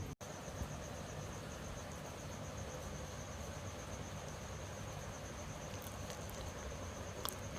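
A cricket trilling continuously in a steady, evenly pulsed high tone over a low steady background hiss. The sound drops out for an instant just after the start, and there are a few faint clicks near the end.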